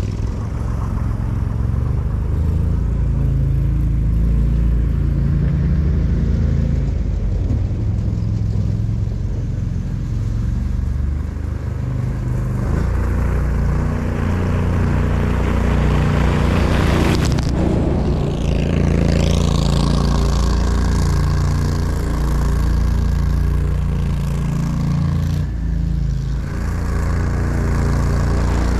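Argo 750 HDI eight-wheel ATV engine running under load as the machine drives through deep snow, its pitch shifting up and down. A loud rushing burst about two-thirds of the way through.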